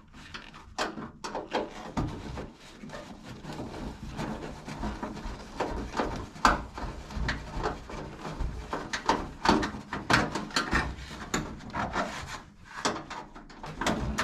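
A screw being worked out of a range hood's metal switch panel with a screwdriver: irregular clicks, scrapes and rubbing as the tool turns and shifts against the panel.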